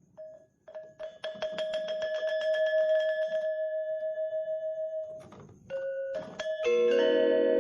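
A metal hand bell rung rapidly, about eight strokes a second, for a couple of seconds, then left ringing. It is followed by a few single struck bell-like tones, the last sounding several pitches together and ringing on.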